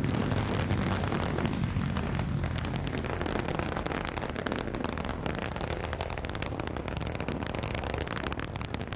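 Antares rocket's first stage burning during ascent: a steady crackling rumble of the engine exhaust that slowly fades as the rocket climbs away.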